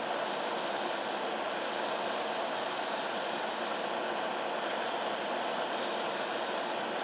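Hobby servo motors whirring with a steady, gritty rasp as they follow the tilt of an MPU motion-sensor board moved by hand. The highest hiss drops out briefly a few times.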